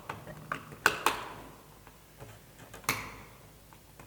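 Sharp plastic clicks and knocks as the cover of a lighting-track live-end feeder is fitted into place: several in the first second and a louder one about three seconds in.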